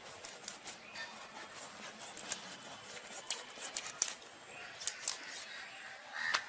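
Boal fish being cut into steaks on a boti, a fixed upright kitchen blade: a run of short crunching clicks as the blade goes through flesh and backbone, with sharper cracks about three seconds in and again near the end.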